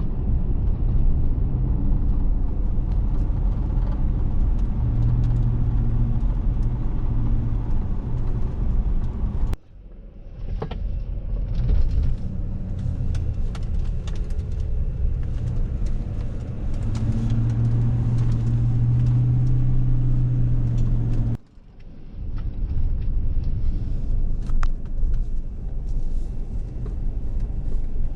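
A car driving on the road: steady engine and road rumble with a low engine note that swells now and then. It breaks off abruptly twice.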